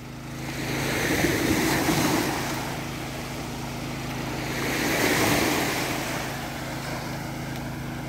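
Small waves washing up onto a sandy beach, swelling twice as they break, over a low steady hum.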